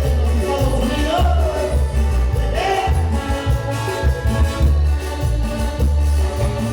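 Latin American band music with a heavy, pulsing bass line under a gliding melodic lead.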